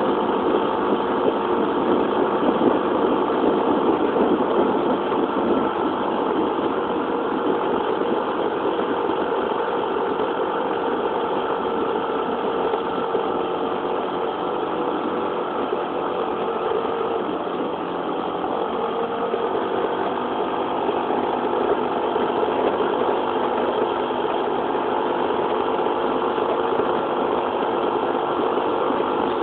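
Yamaha Jog 4st 50cc four-stroke scooter engine running steadily under way, heard from the handlebar. The engine note drops a little about two-thirds of the way through, then holds steady again.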